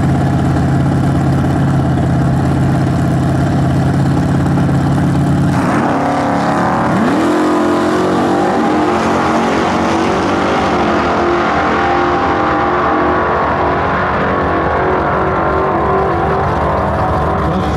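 Two 1960s Super Stock muscle cars' V8 engines held at high revs on the starting line, then launching at full throttle about five and a half seconds in. The revs climb and step through gear changes, and the sound grows duller as the cars pull away down the drag strip.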